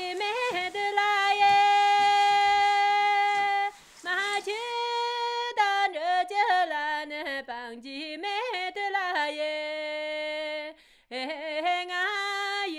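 A woman singing unaccompanied: a high note held for nearly three seconds, a short break, then winding, ornamented phrases with another long held note about two-thirds of the way through.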